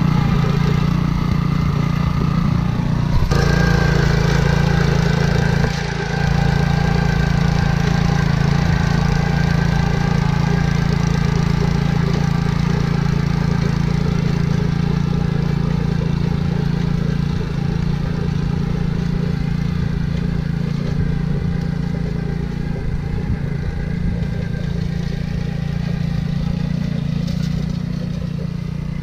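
Honda single-cylinder four-stroke engine on a Ryan Lawnaire walk-behind core aerator, running steadily while the machine is pushed across a lawn pulling soil plugs. It grows a little fainter near the end.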